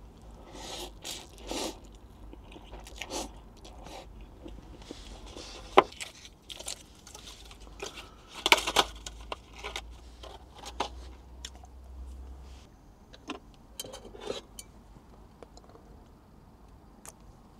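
A person eating cup ramen noodles and gimbap with chopsticks: irregular chewing, crunching and biting noises with scattered sharp clicks. A faint low hum underneath stops about two-thirds of the way through.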